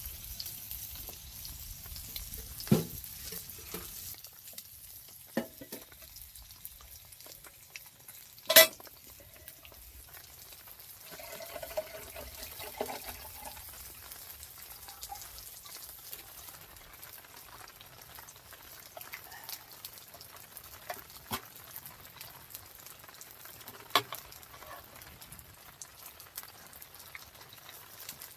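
Steady hiss of heavy rain falling on the tent, broken by a few sharp knocks, the loudest about eight and a half seconds in.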